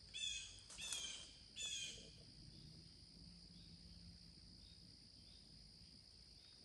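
A bird calls three times in the first two seconds, each call short and falling in pitch, over a steady high-pitched insect drone.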